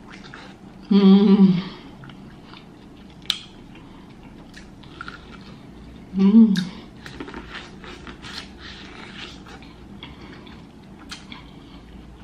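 A person chewing a mouthful of corn on the cob close to the microphone, with many small moist clicks and crunches of the kernels. Two short, loud hummed 'mmm' sounds come about one second in and again about six seconds in.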